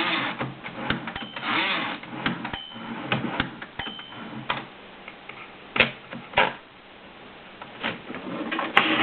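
A 1930 Royal P typewriter being worked by hand: irregular sharp clacks and knocks of its mechanism, mixed with short rasping, sliding spells, and a quieter stretch after the middle.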